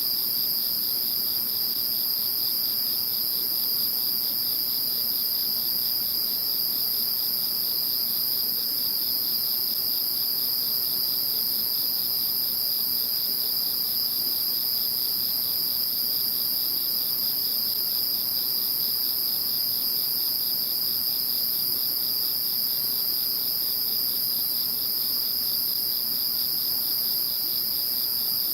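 Chorus of singing insects: several continuous high-pitched trills at steady pitch, with a fast, fine pulsing just beneath them.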